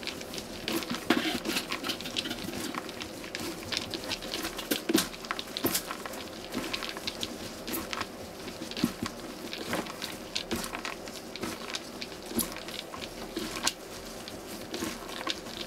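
Rubber-gloved hands tossing and rubbing julienned Korean radish with red pepper flakes in a plastic basin: a steady wet rustling crackle of the strips, full of small quick clicks. This is the first step of kimchi stuffing, tinting the radish red with the pepper flakes before the rest of the seasoning goes in.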